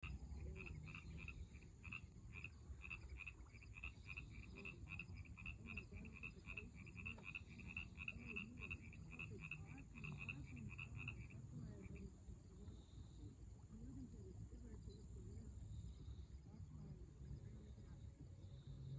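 A frog calling a steady series of short, high croaks, about three or four a second, which stops a little over halfway through. A low steady rumble runs underneath.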